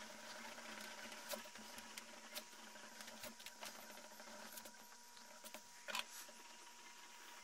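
Plastic eraser rubbing back and forth on sketchbook paper, erasing pencil construction lines: a faint scratchy scrubbing with scattered small clicks and one sharper tap about six seconds in, over a faint steady hum.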